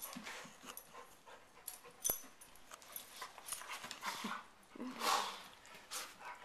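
Two dogs tussling on a couch: soft scuffling of fur and bodies against the cushions and blanket, with breathy swells and a single sharp click about two seconds in.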